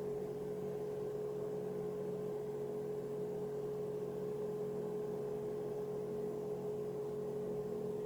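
A steady electrical-sounding hum: one clear unchanging tone with fainter lower tones beneath it and a light hiss.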